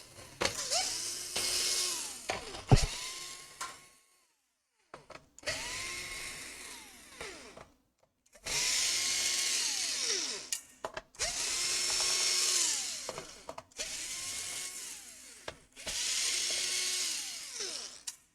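Small electric screwdriver backing out the laptop's case screws in about six runs of two to three seconds each, its motor whine rising as it spins up and falling away as it stops.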